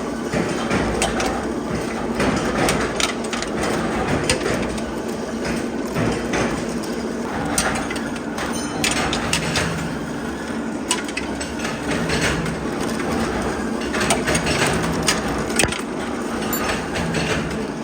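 Factory machinery running steadily, with frequent irregular metallic clanks and knocks over a continuous mechanical din.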